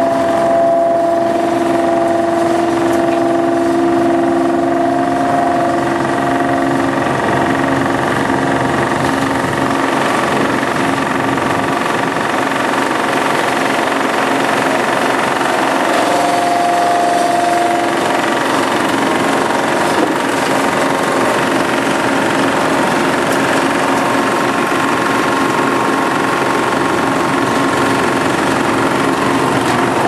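Large Hitachi tracked wood chipper running hard: a loud, steady machine drone with several whining tones that shift in pitch a few times, over a rough grinding noise.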